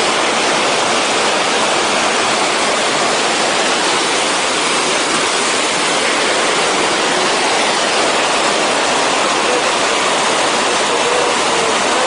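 Whitewater of a mountain stream pouring over boulders in a small waterfall cascade: a loud, steady rushing.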